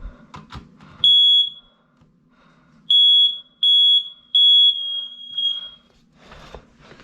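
Smoke alarm sounding on test with loud high-pitched beeps: a single beep about a second in, then three beeps in a row, the last one fading out more quietly. A few clicks come just before the first beep.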